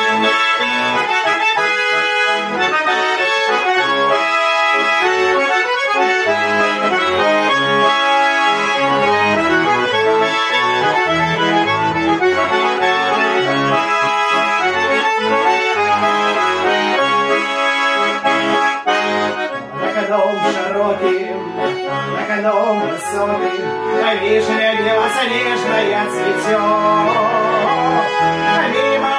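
A handmade Russian garmon, a button accordion tuned in E major, playing an instrumental folk melody with chords. The notes are sustained by the bellows.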